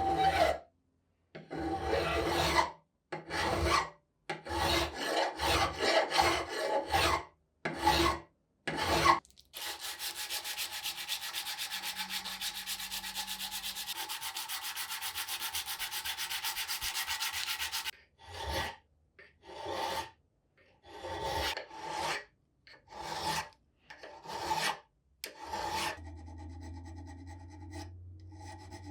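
Repeated rasping rubbing strokes, like a file or abrasive worked by hand, each lasting under a second with short pauses. About ten seconds in they give way to an even, fast-pulsing rasp for about eight seconds, then the separate strokes resume.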